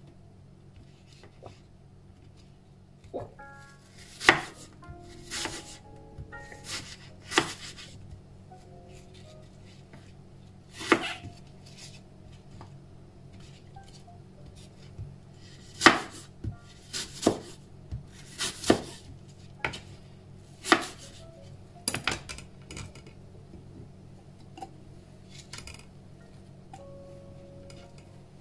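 Chef's knife slicing a green apple on a wooden cutting board: sharp, irregular knocks each time the blade meets the board, with pauses between cuts.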